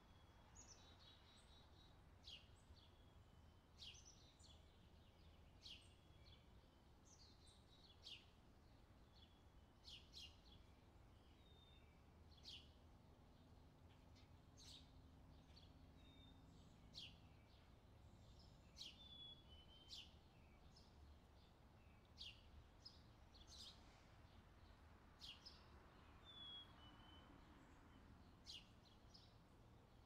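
Faint outdoor summer ambience: birds giving short, sharp, high chirps every second or two over a low, steady background rumble.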